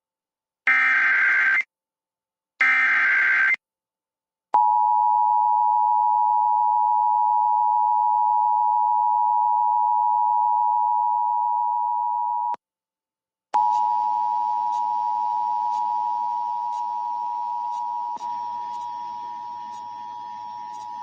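Emergency Alert System signal for a severe thunderstorm warning. Two short screeching bursts of digital header data come first, then a steady two-pitch attention tone sounds for about eight seconds. The tone breaks off briefly and resumes with static hiss and faint clicks under it, slowly getting quieter.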